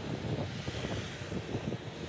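Road traffic passing at close range, mostly motorcycle engines and tyres, with wind buffeting the microphone.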